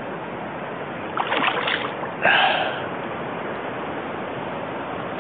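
A hooked hybrid striped bass thrashing and splashing at the water's surface beside a kayak, in two short bursts about a second and two seconds in, over a steady background hiss of moving water.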